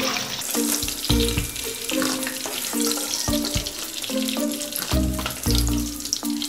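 Chicken pakoras deep-frying in hot oil in a kadai, a steady sizzling hiss, while background music with short repeated notes and a low beat plays over it.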